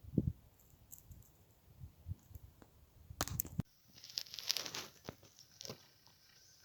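Rustling and crinkling, as of fabric or a bag being handled, with a soft thump at the start and a few light knocks.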